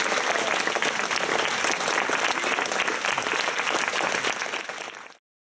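Audience applauding: dense, steady clapping that fades slightly and cuts off abruptly about five seconds in.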